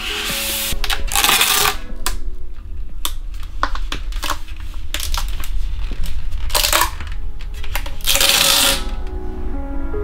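A cloth wiping a bike rim, then rim tape peeling off its roll as it is laid onto the rim, in several short bursts of tearing noise over background music.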